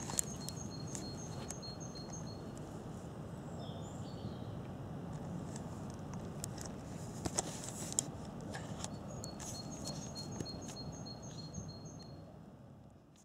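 Outdoor garden ambience: a steady low background rumble with a few sharp clicks, and a bird repeating a quick high chirping phrase twice, at the start and again past the middle.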